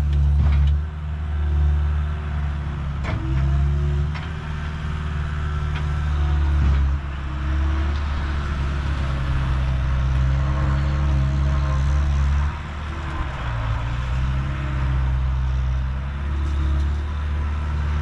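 Diesel engine of a John Deere 320D skid steer running under work, a steady low drone whose pitch drops and rises several times as the machine changes speed.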